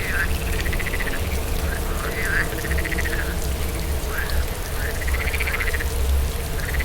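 Frogs calling over and over, short rapid trilled calls about once a second, over a steady hiss of rain and a low rumble of wind.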